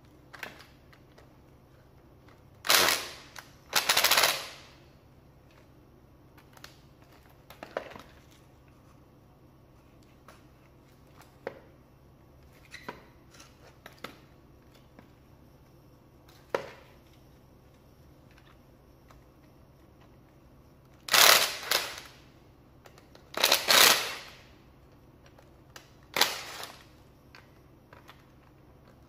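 Makita TD110D 12 V cordless impact driver hammering in several short bursts of about half a second to a second each as it loosens screws in a power head's housing, with faint clicks of handled parts in between.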